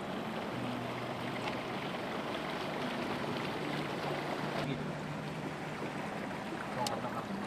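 Floodwater moving through a flooded street, a steady noise of water, with a faint low motor hum underneath.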